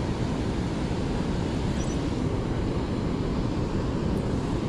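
Steady rush of water pouring out of a reservoir spillway and churning through the tailwater below it.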